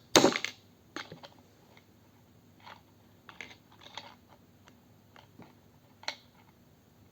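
Hand-assembly of a children's bike: a sharp knock near the start, then scattered light clicks and taps as parts are handled and fitted.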